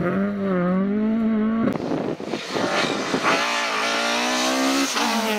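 Mk2 Ford Escort rally car's engine running at high revs through a corner, the pitch wavering with the throttle. After a break and a brief uneven patch, a second rally car's engine runs at high revs, its pitch climbing slowly.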